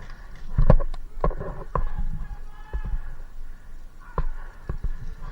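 Irregular knocks and low thumps, about a dozen, the loudest a little under a second in and again about four seconds in, with faint distant voices in between.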